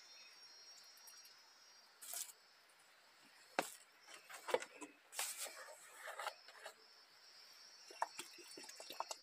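Insects trilling in a steady high band, with scattered sharp knocks and clicks from about three and a half seconds in.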